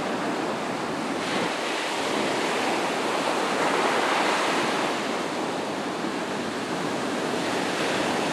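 Ocean surf breaking and washing up a sandy beach, a steady rush that swells a little midway and eases again.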